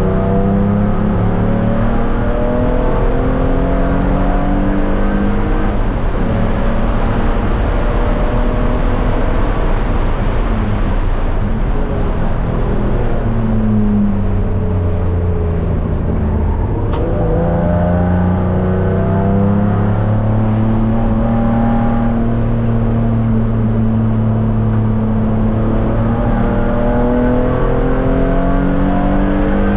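Race car engine heard from inside its stripped, roll-caged cabin, working hard on a circuit lap: it rises in pitch as it pulls through the revs, drops about halfway through, then climbs again.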